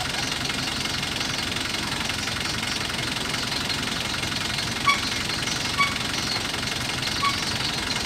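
Moored speedboat's engine idling steadily at the jetty, with three short high chirps in the second half.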